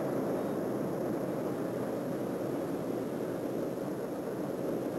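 Steady jet aircraft noise in flight: an even rushing drone that holds without change.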